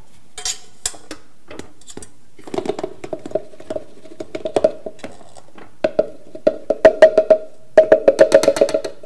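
Electric stand mixer running on dry cookie ingredients: the motor hum starts about two and a half seconds in, cuts out briefly twice, and comes back. Rapid clicking and knocking of the beater in the bowl runs over it and grows louder toward the end.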